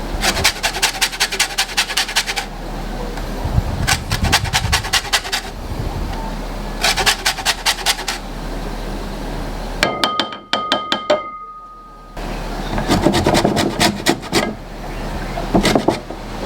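Lemon being zested on a grater: bursts of quick, rhythmic rasping strokes of rind against the grater's teeth, a second or two at a time, with short pauses between.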